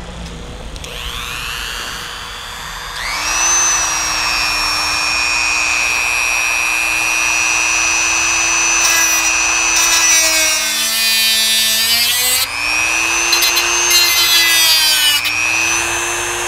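Dremel rotary tool with a cutoff wheel grinding through a mobile antenna whip: a high motor whine spins up about a second in and holds steady over a gritty cutting noise. About two-thirds through, the pitch sags under the load of the cut and then recovers.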